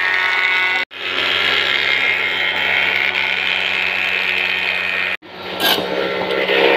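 Electric woodworking machinery running steadily, a motor hum under a dense whir. The sound cuts out abruptly about a second in and again near the end, and after the second cut it turns rougher, with a few short scraping hits as a wooden board is worked against the turning drum.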